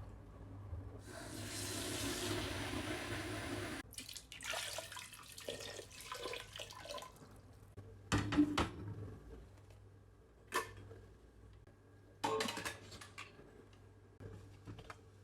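Kitchen tap running into a sink for about three seconds, then shut off abruptly, followed by a few scattered knocks and clatters.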